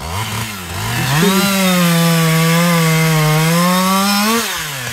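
Two-stroke chainsaw revving up about a second in and held at full throttle for about three seconds, making a felling cut through the trunk of a dead birch, then dropping back toward idle near the end.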